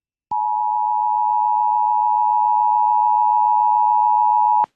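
Emergency Alert System attention signal: a steady alarm tone near 1 kHz, held for about four seconds and cutting off abruptly, announcing an incoming severe thunderstorm warning.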